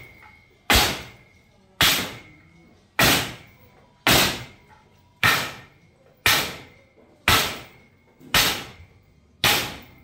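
Sharp, heavy knocks repeated at an even pace of about one a second, nine in all, each ringing out briefly.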